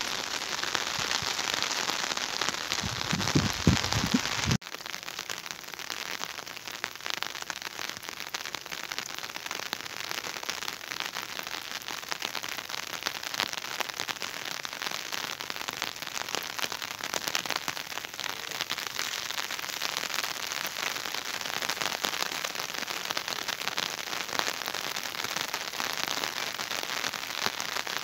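Steady rain falling, a dense patter of drops. The sound cuts abruptly about four and a half seconds in and carries on at a slightly lower level, with a few low thumps on the microphone just before the cut.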